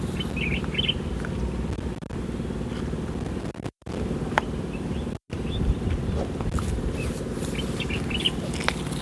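Steady low rumble of a running motor vehicle, with birds chirping now and then. The sound cuts out completely twice, briefly, a little before and after the middle.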